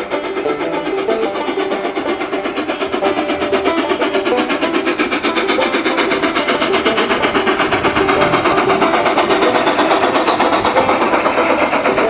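Background music mixed with the steady, rhythmic chuffing of the sound units in two G scale Mallet steam locomotive models running together.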